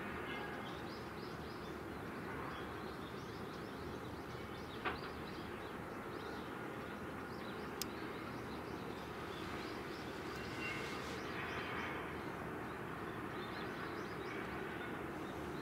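Steady distant rumble of tugboat engines working a large ship alongside the dock, under an even outdoor noise, with faint scattered bird chirps and two short clicks near the middle.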